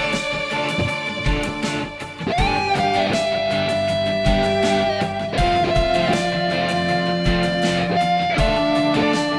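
Instrumental music: sustained guitar notes with bending pitch over a steady low beat.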